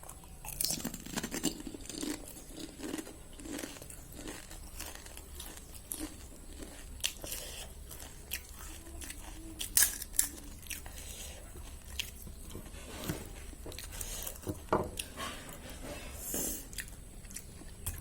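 Golgappa (pani puri) being bitten and chewed close to the microphone: the crisp shells crunch in a run of short, sharp crackles between chewing sounds. The loudest crunches come as a pair about ten seconds in.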